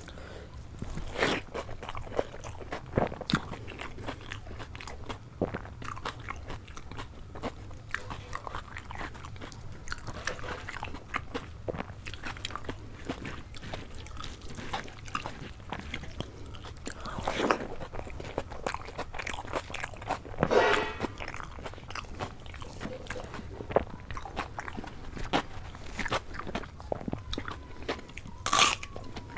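Close-up eating sounds: fingers squishing and mixing rice with dal, then chewing and crunchy bites, with many short wet clicks and smacks. There is a loud sharp crunch about a second before the end.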